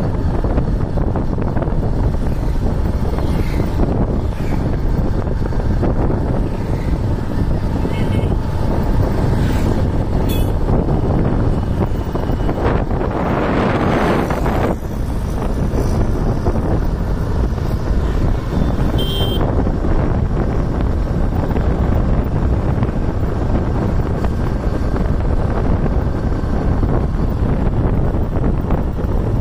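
Wind buffeting the microphone over the steady road and engine noise of a moving two-wheeler, with a louder rush about thirteen to fifteen seconds in as a vehicle passes close by.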